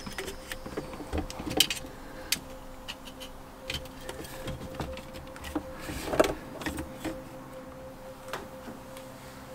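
Jumper-cable clamps and cables handled and clipped on: scattered clicks and knocks, the loudest about six seconds in, over a faint steady hum.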